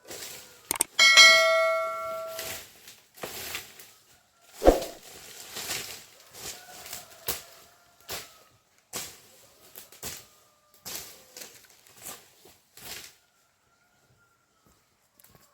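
A metal object rings briefly after a strike, about a second in. Around it come irregular knocks and clatter.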